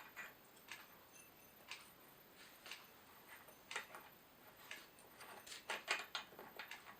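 Faint, scattered light clicks and clinks of small metal chainsaw parts being handled during clutch reassembly, with a short run of several clinks about six seconds in.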